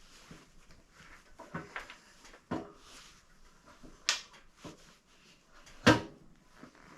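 Irregular clicks and knocks of the CB750's oil tank and rubber hoses being worked free of the motorcycle frame by hand, with a sharp knock about four seconds in and the loudest about six seconds in.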